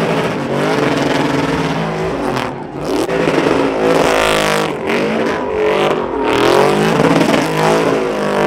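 Pickup truck engine revving hard, its pitch swinging up and down again and again, as the truck spins its rear tires in a smoky burnout.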